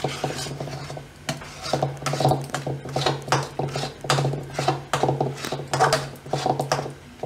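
A spatula scraping and stirring thick mawa (milk cooked down to khoya) around a metal kadai, in repeated strokes about one or two a second. The scraping along the bottom keeps the thickened mass from sticking and settling on the base of the pan.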